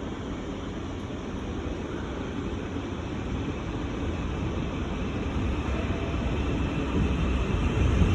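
Train running with a low rumble that grows steadily louder, as if coming closer.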